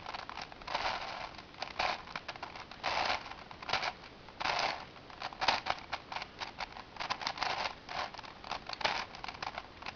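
V-Cube 7 puzzle cube's plastic layers being turned by hand through a sequence of moves: a string of short clacks and scrapes, one or two a second, at an uneven pace.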